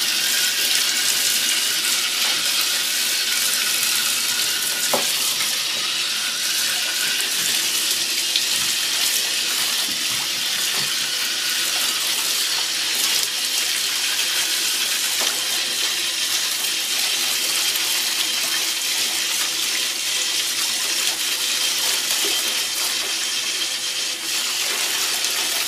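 Bath tap running steadily into a filling bathtub, water splashing into water.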